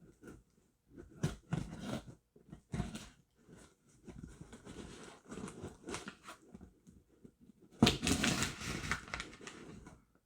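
Cardboard shipping box being cut open with a knife: irregular scraping, rustling and knocks as the blade works through the tape and the box is handled, with a longer, louder rasping stretch about eight seconds in.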